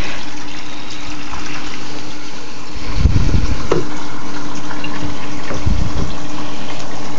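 Reef tank water draining through a siphon tube into a bucket: a steady gush of running water, with a few low thumps from about three seconds in.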